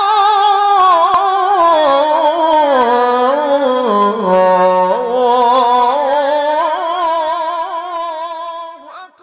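A solo voice chanting one long, ornamented line of Islamic devotional chant with heavy vibrato. It slides down in pitch over the first four seconds, climbs back up, and fades out about nine seconds in.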